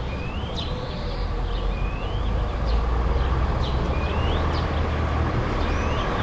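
Town street ambience: a steady low rumble of distant traffic that grows a little louder partway through, with a bird repeating a short rising chirp every second or two.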